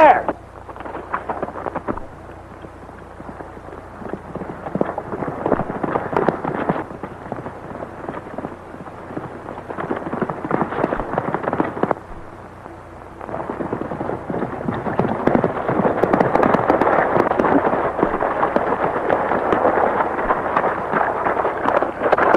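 Horses galloping: a rapid patter of hooves on hard, dry ground. It is fainter at first and grows louder and denser from about thirteen seconds in.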